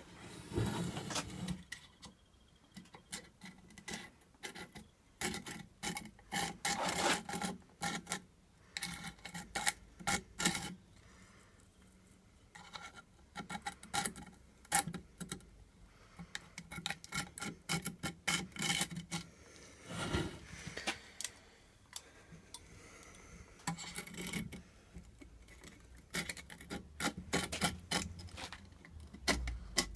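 Allen key scraped along grip tape over the edge of a scooter deck in quick, irregular strokes, marking the deck outline so the tape can be trimmed.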